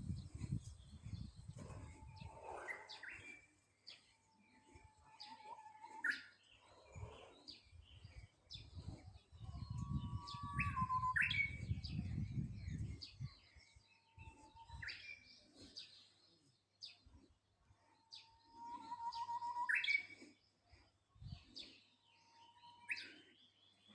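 Japanese bush warbler singing its song about six times, each a long held whistle followed by a quick sharp flourish, with other small birds chirping faintly. A low rumble, like wind on the microphone, comes in at the start and again midway.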